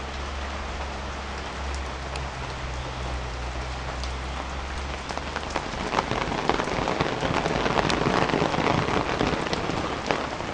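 Rain falling steadily and pattering on wet concrete, a dense patter of many small drop impacts that grows louder about six seconds in. A low steady hum sits under the first five seconds.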